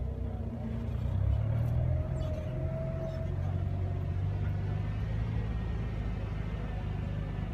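Car engine and road rumble heard from inside a moving vehicle, a steady low drone.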